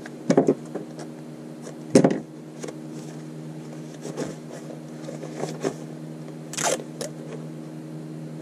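Close handling of paper and a roll of washi tape: tape being pulled from the roll and pressed along notebook page edges, with pages rustling. A few sharper rustles stand out, the loudest about two seconds in, over a steady low hum.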